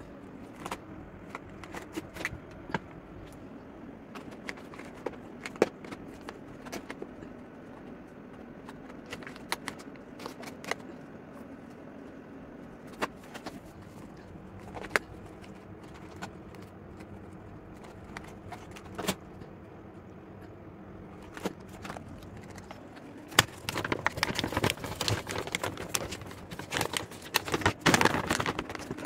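Plastic bag of dry cat food crinkling in scattered sharp snaps as cats bite and tear at it, turning into dense, continuous crinkling over the last several seconds.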